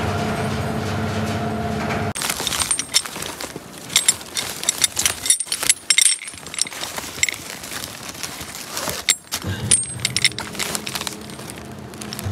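Gantry crane running with a steady hum, then for about seven seconds its steel lifting chains and hooks rattling and clinking as they are handled over big bulk bags; the hum returns near the end.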